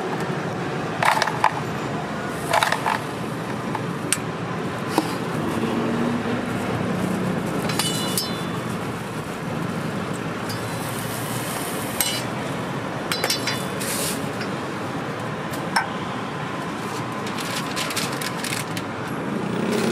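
Metal utensils clinking and scraping against jars and a flat crepe griddle, in irregular sharp clinks, over a steady background of street noise.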